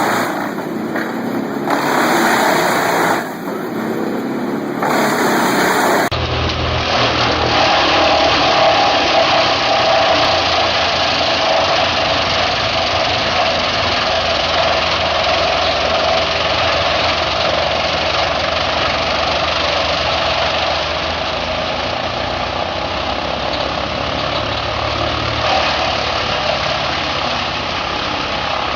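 Large wood chipper's engine running steadily under heavy machinery noise. About six seconds in the sound cuts to a different recording, with a deeper engine note and a steady higher hum.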